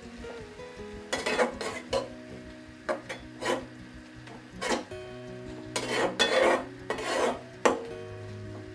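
Spatula scraping and stirring minced-chicken filling around a kadai in irregular strokes, with a longer run of scrapes in the second half, as flour is mixed in.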